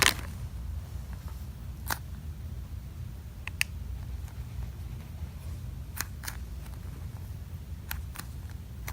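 Packaging being handled and opened: about six light, sharp clicks and snips, spaced a second or two apart, over a low steady room hum.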